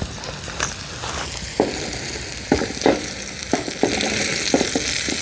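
Hamburger patties and onions sizzling in a skillet. The sizzle grows louder about a second in, with a spatula knocking and scraping against the pan several times.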